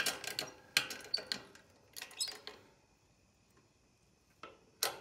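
Short clusters of sharp metallic clicks and knocks, three in the first two and a half seconds and two more near the end, from steel parts being handled and set up in a shop press to press a sprocket onto a go-kart clutch housing hub.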